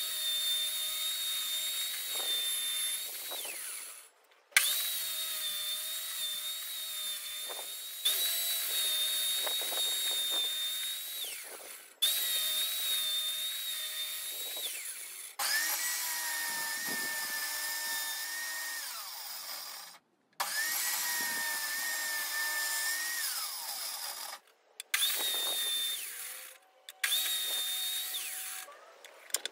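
Benchtop table saw running with a steady whine while ripping strips from hardwood and pine boards, in several stretches that start and stop abruptly, the whine's pitch changing from one stretch to the next.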